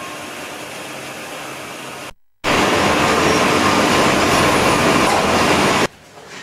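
Forklift truck running and driving: a loud, even mechanical noise with a steady hum. It starts abruptly after a moment of silence about two and a half seconds in and cuts off suddenly near the end. Before it there is only quiet room tone.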